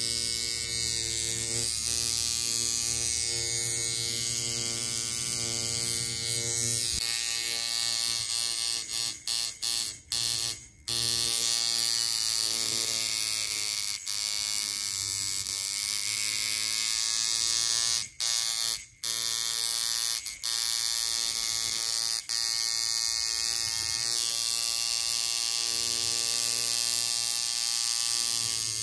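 Coil tattoo machine running, its armature bar buzzing against the contact screw in a steady electric buzz. It cuts out briefly a few times partway through, and its pitch wavers while the contact screw is adjusted.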